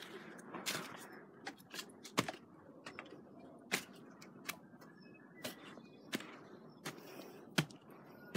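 Footsteps on a dirt forest trail: sharp, irregular steps about one or two a second.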